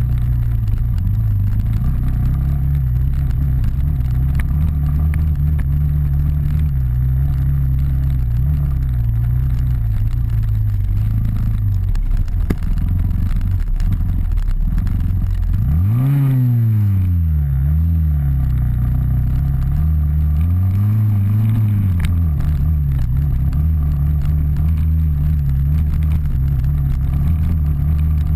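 Trail dirt bike engine running at low, fairly steady revs while riding singletrack, heard up close, revving up and dropping back twice: a little past halfway and again about three-quarters through.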